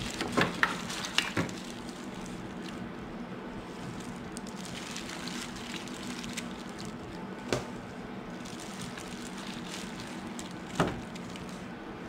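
Gloved hands pulling apart cooked pork in a disposable aluminium foil pan: soft squishing of the meat in its juices and crinkling of the plastic gloves and foil pan, with a few sharp crinkles in the first second and a half and single ones about seven and a half and eleven seconds in. A steady low hum runs underneath.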